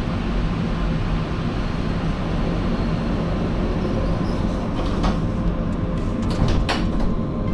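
Electric train running with a steady rumble, with a few sharp clicks in the second half.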